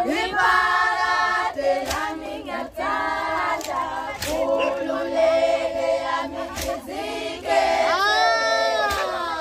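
A group of women singing together in unison, sustained and loud, with a few sharp claps. Near the end one high voice rises and falls in a cry over the singing.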